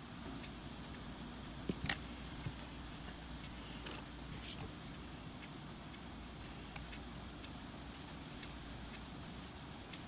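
Coloured pencils working on a colouring-book page: faint scratching with a few sharp clicks, the loudest two about two seconds in, over a steady low rumble.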